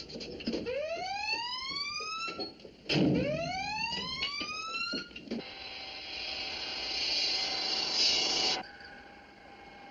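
Submarine collision alarm whooping: two rising whoops about two and a half seconds apart, with clanks and knocks between them. About five seconds in, a loud hiss takes over for about three seconds and cuts off suddenly.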